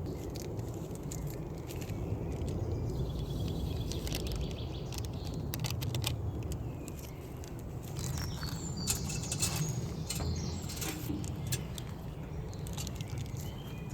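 Small birds chirping in short phrases, a few seconds in and again around the middle, over a steady low rumble, with a few light clicks.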